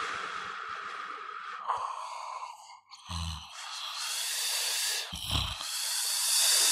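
Heavy breathing: long hissing breaths in and out, with two short low snorts about three and five seconds in.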